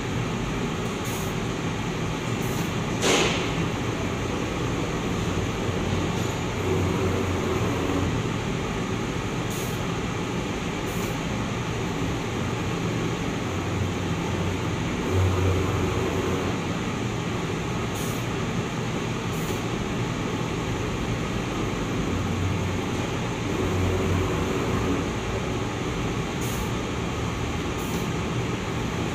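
Two-colour, three-servo-motor screen printing machine with UV drying running automatically: a steady mechanical hum, with a low drone that swells and a pair of light clicks repeating about every eight seconds as it cycles through its printing strokes, and one sharper click about three seconds in.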